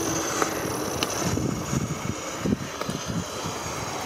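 Gauge 1 live steam locomotive hissing and spluttering irregularly with its regulator open, spitting out water as it clears condensate from its cylinders before it gets under way.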